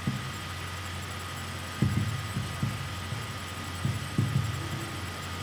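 Steady electrical hum, with soft low knocks and rubs of a marker writing on a whiteboard in two short clusters, about two and four seconds in.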